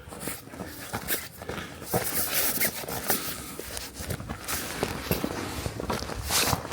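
Footsteps crunching through snow in trekking shoes fitted with chain spikes, an irregular run of crisp steps.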